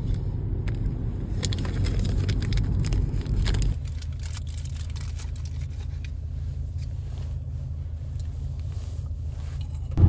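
Moving car's road noise: a steady low rumble that drops abruptly to a quieter, even rumble about four seconds in.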